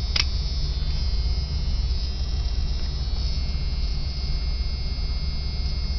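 Motorhome engine idling: a steady low rumble with a faint high steady whine over it, and a single click about a quarter of a second in.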